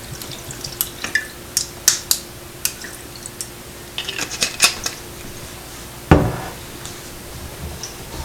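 Sharp clinks and taps of glass and metal, a bottle and bar tools against a rocks glass of ice while vodka is measured and poured, with one heavier thump about six seconds in.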